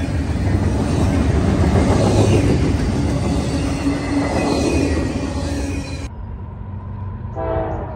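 Double-stack intermodal container train passing close by: steel wheels rumbling on the rails with a steady wheel squeal. The sound cuts off about six seconds in, and near the end a locomotive horn sounds briefly in the distance.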